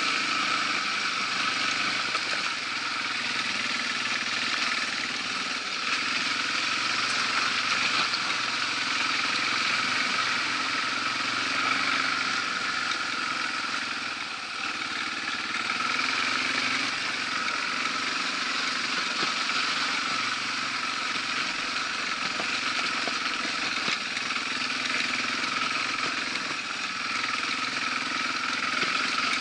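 Yamaha TW200's single-cylinder four-stroke engine running steadily as the motorcycle rides along, with a brief dip in level about halfway through.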